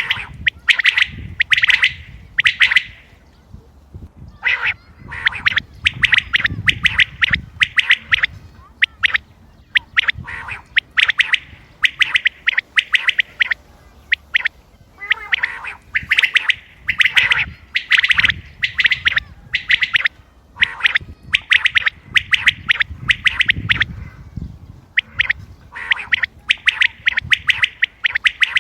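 Common quail calling: quick runs of sharp, repeated notes, group after group with short pauses between.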